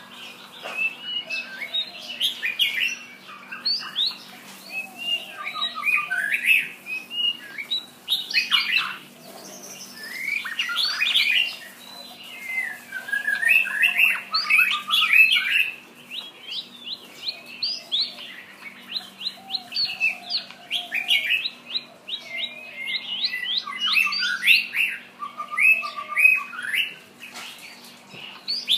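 A shama singing a long, varied song of rapid whistled and chattering phrases, delivered in bouts of a few seconds with short pauses between them.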